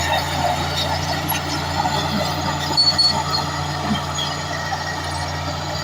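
A large bulldozer's diesel engine running steadily with a low drone, with a few brief high squeaks about three seconds in.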